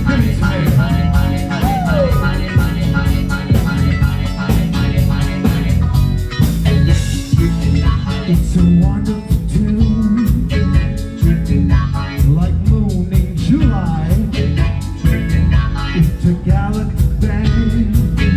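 A rock band playing live with no clear vocals: electric guitar over a driving drum beat and heavy bass, with a few bent or gliding guitar notes about a second in.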